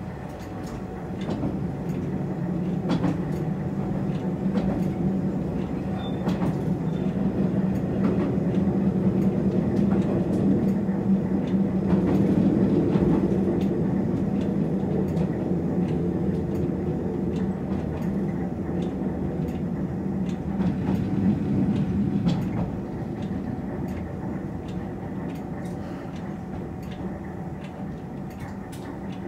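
Diesel railcar running along the track, heard from inside the car: a steady engine drone with scattered wheel clicks over the rails. It eases off and quietens about 22 seconds in, as the railcar comes up to a station.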